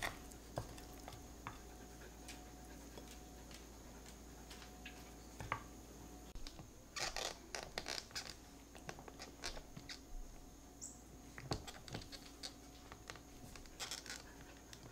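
A metal ice cream scoop scraping through firm ice cream in a paper carton, in short scratchy strokes from about seven seconds in. A few light clicks come before it.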